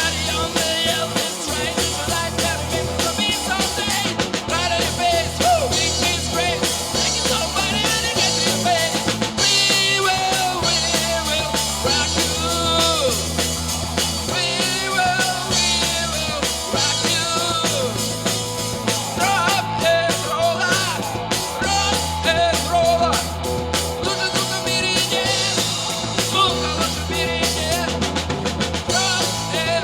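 A live rock band playing a rock-and-roll song: a drum kit keeping a steady beat under a bass line that changes note every second or two, with guitar lines above.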